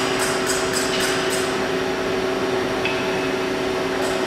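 Three-coordinate CNC deep hole drilling machine running: a steady hum over mechanical noise, with a rhythmic high ticking of about four a second that fades out about a second and a half in.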